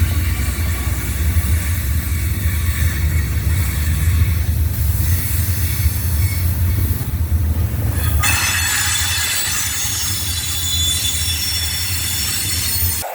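Train rolling past, with a heavy, steady rumble of wheels on rail. Thin, high steel-on-steel wheel squeal runs over it and grows stronger about two-thirds of the way through.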